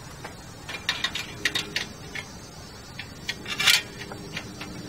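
Metal hand tools clinking as an adjustable wrench is handled and fitted onto a bicycle's rear axle nut: a scatter of short sharp clicks, then a louder clink about three-quarters of the way through.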